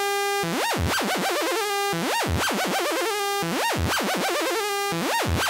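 Synthesizer oscillator tone with its pitch swept by a looped, recorded CV: a fast swoop up and down, a few quick wobbles, then a held note. The pattern repeats about every second and a half, played back fast from a raised clock rate that the player finds a bit too fast.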